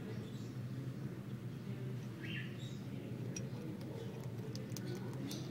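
A short, faint squeak from a heap of sleeping hamsters about two seconds in, then a run of small quick clicks over a steady low hum.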